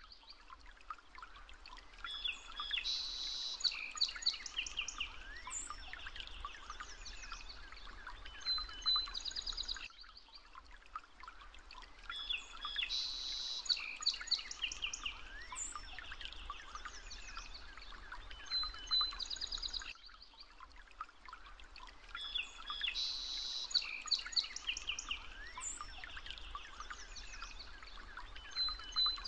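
Recorded birdsong: several birds chirping, trilling and whistling. The same stretch of about ten seconds loops about three times.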